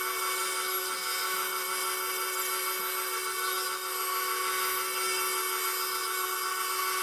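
Electric blade grinder running steadily while sharpening a mower blade: a steady motor hum under a continuous high grinding hiss.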